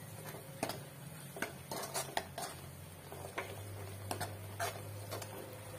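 A steel spoon scraping and clinking against a steel kadhai in irregular strokes as a thick spice paste is stirred and sautéed in oil.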